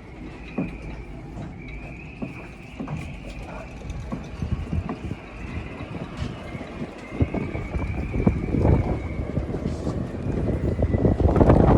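Strong wind, near 30 knots, blowing through a marina: a wavering high whistle from the wind in the boats' rigging, with irregular knocking and rattling. Wind buffets the microphone more and more, loudest near the end.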